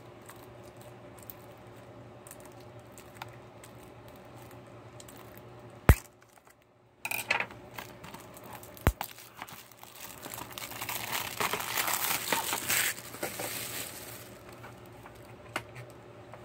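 Plastic shrink wrap being slit and stripped off a DVD case: a sharp click about six seconds in, then a few seconds of crinkling and tearing of the thin plastic film.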